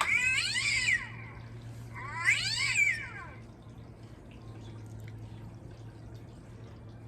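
Two drawn-out animal calls, each about a second long, rising and then falling in pitch: one at the start and another about two seconds in.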